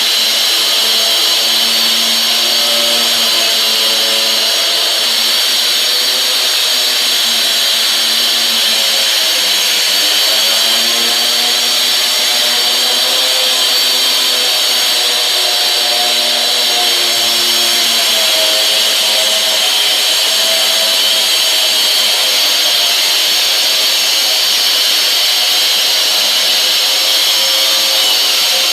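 Makita electric wall chaser running continuously together with a Kärcher vacuum cleaner, a loud steady motor sound whose lower tones drift up and down in pitch, shifting around ten and eighteen seconds in.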